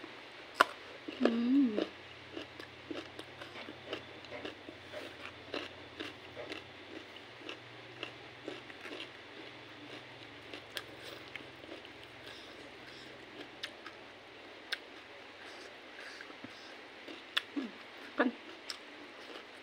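A person chewing a mouthful of fish and rice with open-mouthed smacks and wet mouth clicks. She gives a short hummed 'mm' about a second in and another near the end.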